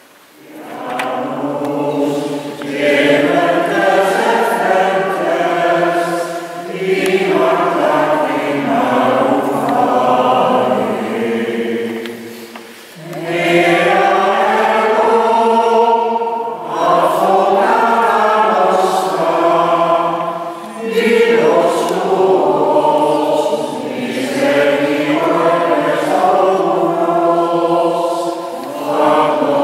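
Choir singing, phrase by phrase, with short breaks between the phrases.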